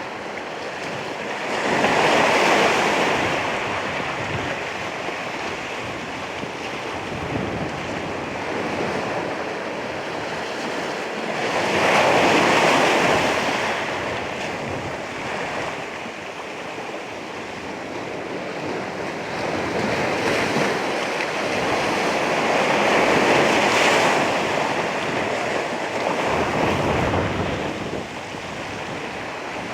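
Ocean waves breaking on the shore, with a steady wash of surf between them. The surf surges three times, about ten seconds apart.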